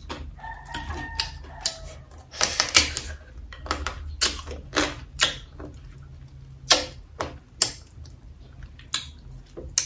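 Fried crab shell cracking and crunching as it is broken apart by hand and bitten, a string of irregular sharp cracks and clicks picked up close by the microphone.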